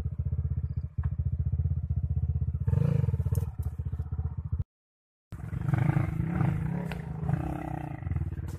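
Dirt bike engines running at low revs with a fast, even putter. A brief dead silence about halfway through interrupts it; after that, an engine revs higher and less evenly as a bike climbs a steep, rutted dirt trail.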